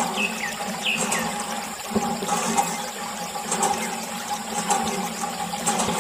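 Water running from a hose and splashing into a muddy puddle and over a small model tractor.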